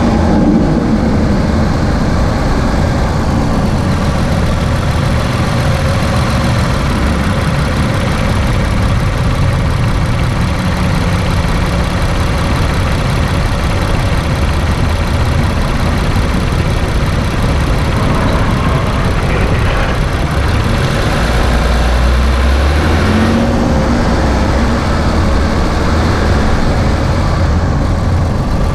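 2017 Infiniti Q50's VR30 twin-turbo V6 running on the move, a steady engine and road rumble that deepens briefly about two-thirds of the way through.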